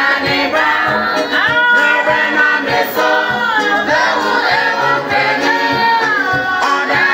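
A church choir of women's voices singing a hymn together, with electronic keyboard accompaniment.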